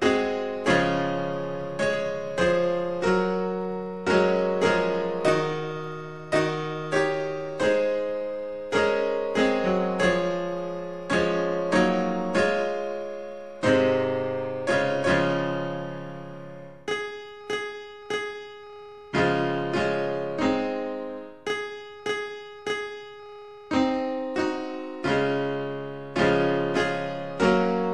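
Solo piano playing a slow piece, chords and melody notes struck and left to fade.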